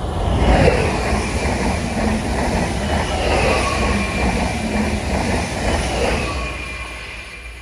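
An electric multiple-unit passenger train passing close at speed: a loud rush of wheel and rail noise with a high, steady whine over it, dying away near the end as the last carriages go by.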